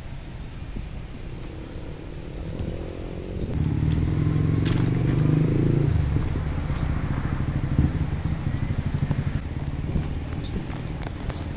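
Street traffic: a motor vehicle's engine running close by, growing louder about three seconds in and easing off near the end, over road and wind noise.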